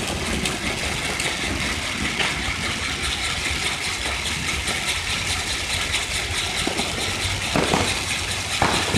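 Ground-spinning firework whirling and spraying sparks: a steady hiss with fine crackling ticks running through it.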